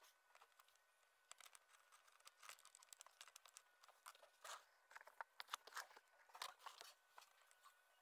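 Faint, scattered small clicks and scrapes from the newly respringed latch on a soprano saxophone case as it is worked by hand to test the new spring.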